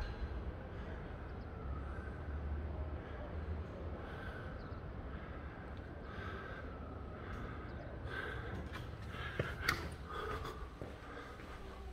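Wind buffeting a phone's microphone outdoors, a low rumble that eases off, with a few sharp clicks near the end.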